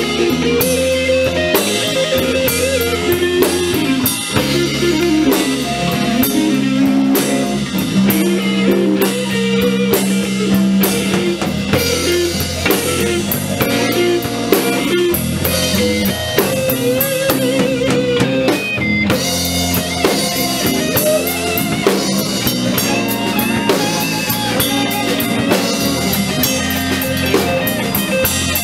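Live blues band playing an instrumental passage of a minor-key blues: guitars, bass guitar and drum kit, with no singing.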